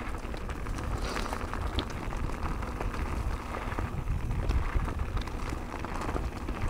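Wind buffeting the microphone and knobby mountain-bike tyres rolling fast over a dirt singletrack, with scattered small clicks and rattles from the bike and loose stones.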